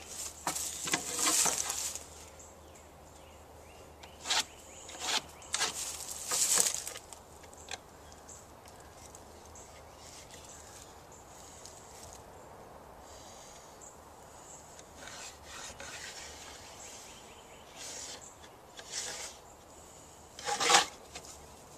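Level and pencil on a sheet of plywood: scraping and rubbing as the level slides across the board and lines are marked, in short scattered bursts with quiet gaps, the loudest near the end.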